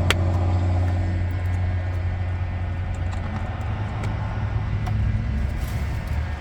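Steady low mechanical hum, with one sharp click right at the start as a blade fuse is pushed into its holder.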